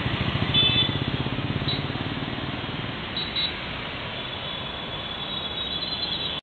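Mixed city traffic of cars, motorcycles and auto-rickshaws driving through a junction, engines running under a steady road noise. Short high horn beeps sound about half a second in and twice just after three seconds.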